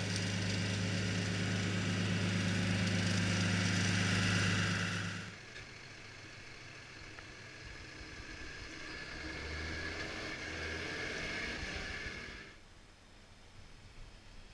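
John Deere tractors' diesel engines running, in clips cut together: a loud, steady engine close by for about five seconds, then a quieter engine with a higher-pitched tone, and only faint distant sound near the end.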